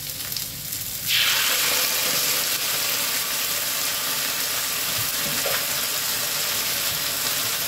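Onion, green pepper and chilli frying in oil in a wok, then tomato sauce squeezed into the hot oil: about a second in the sizzle jumps suddenly much louder and stays steady.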